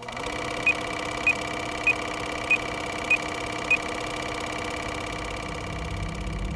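Steady droning hum with six short, high, evenly spaced beeps, about 0.6 s apart, in its first four seconds.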